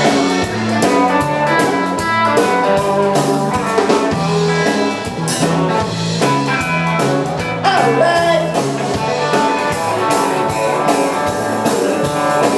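Live band playing the instrumental intro of a rock song on guitar, bass and drum kit, with a stepping bass line under a steady drum beat.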